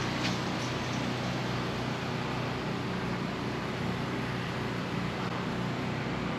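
Generator engine running steadily, giving a low, even hum with a hiss over it.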